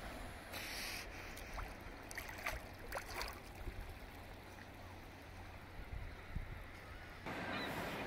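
Sea water lapping and trickling around a drifting kayak, with a few small splashes in the first few seconds; the water sound gets louder about seven seconds in.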